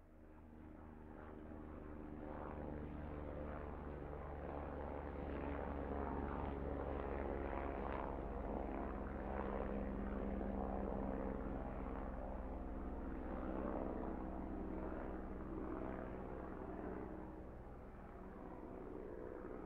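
Helicopter turbine engines and rotors running with a steady drone, growing louder over the first few seconds and then holding level.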